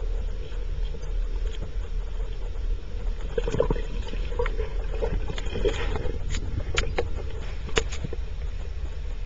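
Underwater sound: a steady low rumble, with a scatter of short, sharp clicks and knocks from about three seconds in until near the end.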